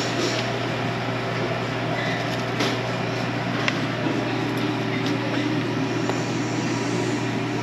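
Steady mechanical hum and rush of commercial kitchen equipment such as ventilation or refrigeration. A few faint knocks of a plastic blender jar being handled.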